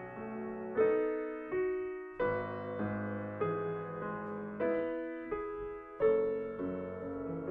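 Grand piano played solo in a slow classical passage, a fresh chord or melody note struck about every two-thirds of a second, each ringing on and fading.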